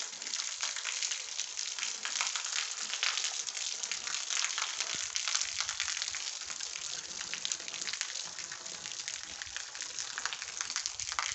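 Light rain falling and pattering, a steady hiss of many fine ticks.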